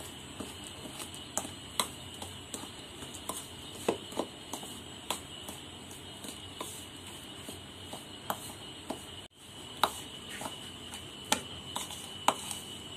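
A spoon stirring rice flour and water into a stiff dough in a bowl, with irregular clicks and taps as it knocks and scrapes against the bowl, one or two a second. A faint steady high whine runs underneath.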